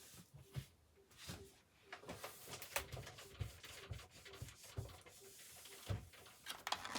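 Faint rubbing and scrubbing, with scattered light knocks and soft thumps.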